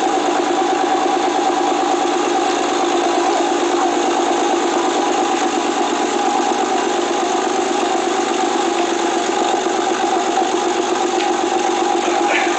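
Twin-turbo Toyota Supra's 2JZ-GTE inline-six idling steadily on a cold start, heard at the tailpipe of an HKS carbon titanium cat-back exhaust.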